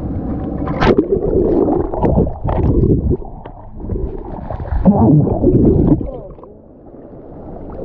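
Water sloshing and gurgling right at the microphone, sounding muffled, with a few sharp splashes or knocks; it eases off about six seconds in.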